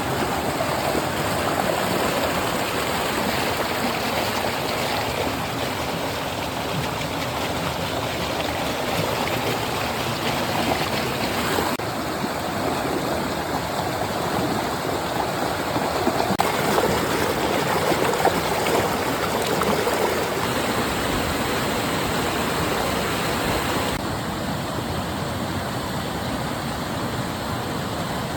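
Flowing water running steadily, like a stream.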